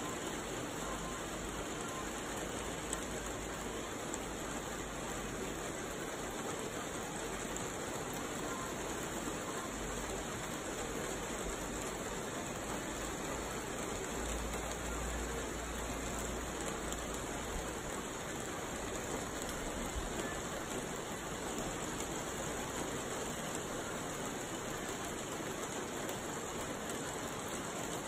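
Steady rain falling and pattering on surfaces, an unbroken hiss, with a low rumble swelling now and then.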